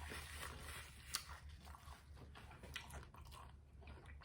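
A person chewing food, faint, with a few sharp crunchy clicks, the strongest about a second in.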